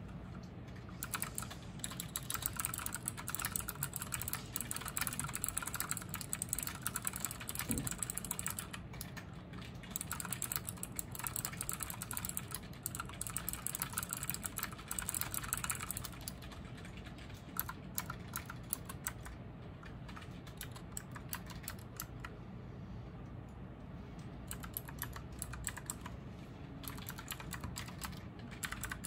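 Typing on a MANIC X50 mechanical keyboard with fourth-generation optical switches and PBT keycaps: a fast, dense clatter of keystrokes, easing to sparser, softer keystrokes a little past halfway and picking up again near the end.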